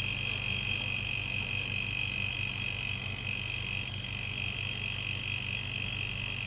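Home-built 'silent' air compressor, a 1 HP hermetic refrigeration-type compressor pumping into a tank, running steadily with a low hum and a steady high whine.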